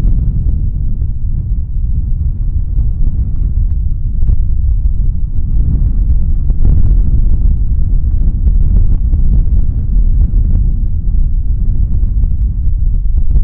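Wind buffeting the microphone: a loud, gusty low rumble.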